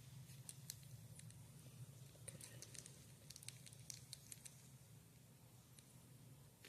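Near silence: a low steady hum with scattered faint, soft clicks and rustles as a newborn puppy is handled, thickest between about two and four and a half seconds in.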